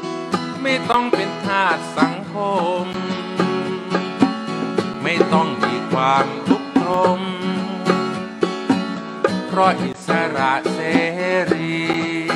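A band playing, with plucked string instruments over steady held chords and a lead melody that bends up and down in pitch.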